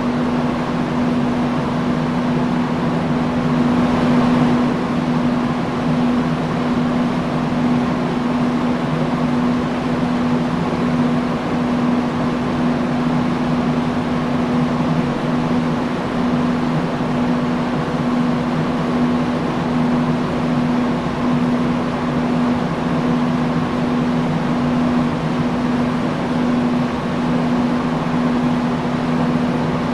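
Industrial fan running steadily: an even rush of air over a constant low hum.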